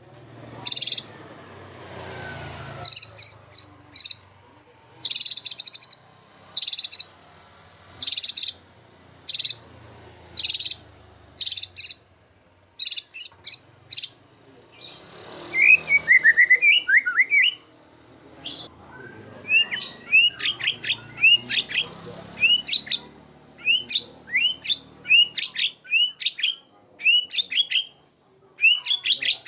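White-rumped shama singing a varied song: short, sharp high phrases about once a second, a lower warbling run about halfway through, then quick series of chirps.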